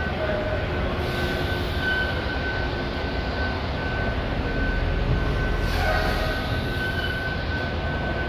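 Diesel semi-truck engines running in an enclosed loading-dock building, a steady rumble with a thin constant whine, while a tractor-trailer backs into a dock. Two short hisses, about a second in and again near six seconds in.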